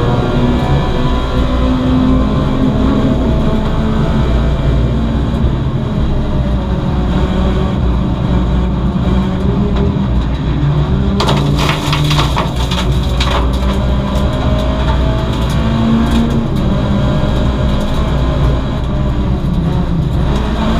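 A VW Lupo GTI race car's 1.6-litre four-cylinder engine heard from inside the stripped cabin, running hard and rising and falling in pitch through corners under road and wind noise. About eleven seconds in there is a brief flurry of sharp rattling knocks lasting a couple of seconds.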